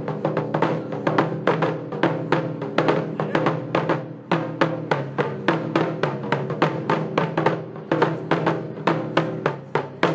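Japanese taiko-style barrel drums struck with sticks by an ensemble of three drummers: a brisk, steady rhythm of sharp strokes over the drums' ringing body tone, easing off briefly about four seconds in.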